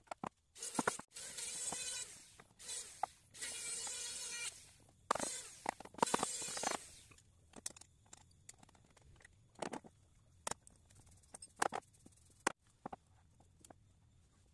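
Six rough scraping strokes of teak on wood, each half a second to a second long, as the curved door pieces are slid and fitted on the workbench. These are followed by scattered light knocks and clinks as steel bar clamps are handled and set across the door frame.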